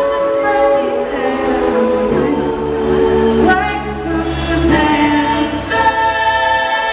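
Live pop-soul song: a female singer holding long sung notes over her band, recorded on a small camcorder with poor, harsh sound quality.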